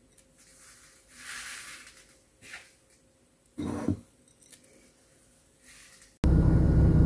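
Soft, scratchy rustling of a hand scooping coarse salt from a bowl and rubbing it onto chum salmon for dry-salting, with a short murmur of a voice about halfway through. Near the end the sound cuts suddenly to the steady, much louder rumble of a car's interior.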